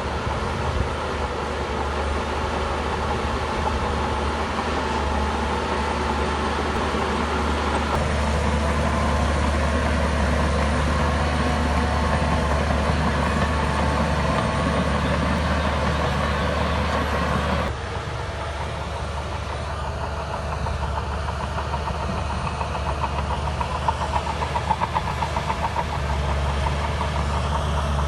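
Heavy diesel engine of a Shantui bulldozer running steadily. Its sound shifts abruptly twice, about a third and about two-thirds of the way through, and a fast rattle comes in near the end.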